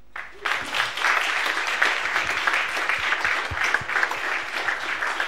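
Audience applauding. The clapping starts within the first half second and holds steady, easing slightly near the end.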